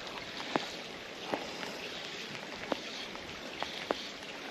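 Rain falling steadily on the water, with a few sharp drops tapping close by at irregular moments.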